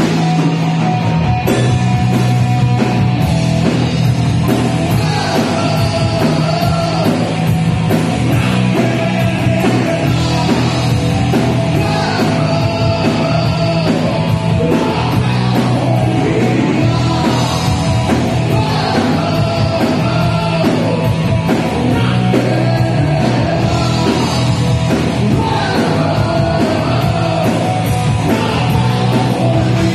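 Hard rock band playing live: distorted electric guitars, bass and drums, with a singer's vocals, some of them shouted.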